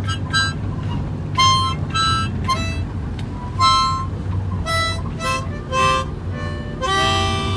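A child playing a harmonica in short, uneven notes, roughly two a second, then a longer held chord near the end. Under it runs the steady low rumble of the van's cabin.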